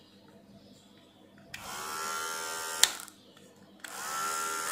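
Rechargeable electric hair clipper switched on: its small motor and blade hum, rising quickly to a steady pitch, then stop with a sharp click about a second later. It is switched on again near the end and spins up the same way.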